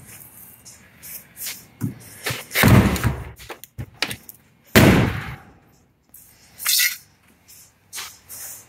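Irregular knocks, thuds and rustling of a person moving about in and out of an old van, with two heavy thuds about three and five seconds in.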